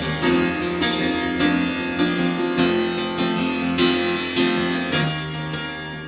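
Slow background music led by piano, a new note or chord struck about every 0.6 s over held low tones.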